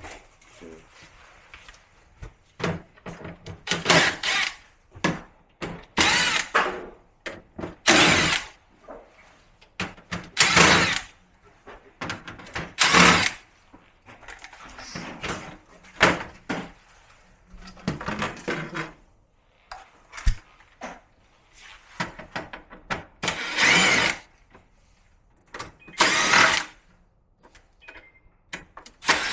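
Cordless drill-driver running in short bursts of about a second, roughly every two seconds, each with a whine, as screws are driven out while the air conditioner is taken apart.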